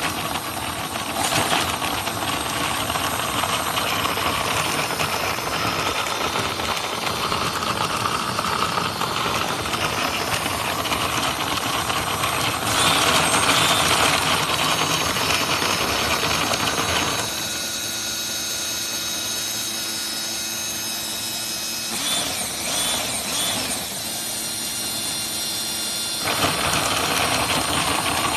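Motor-driven wooden model engine running, a steady mechanical whir and rattle that starts suddenly. It grows louder about halfway through, turns thinner and lighter for several seconds near the end, then fills out again.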